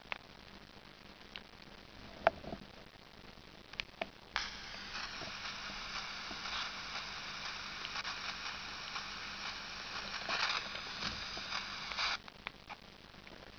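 Sony Ericsson K800i's built-in FM radio playing through the phone's small loudspeaker, thin with no bass. It starts about four seconds in and cuts off suddenly near the end, after a few light keypad clicks.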